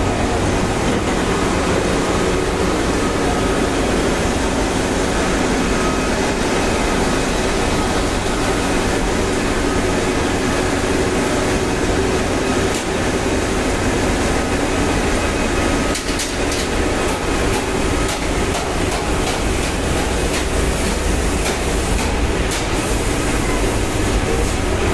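Tea-processing machinery running: a loud, steady mechanical din from conveyors and a rotating metal drum, with a faint steady whine. From about two-thirds of the way in, light irregular clicking and rattling joins it.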